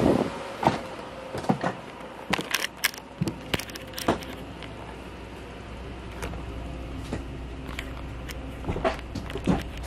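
Footsteps and handling knocks while entering a motorhome by its entry steps: irregular clicks and thumps, busiest in the first four seconds and again near the end, over a steady low hum.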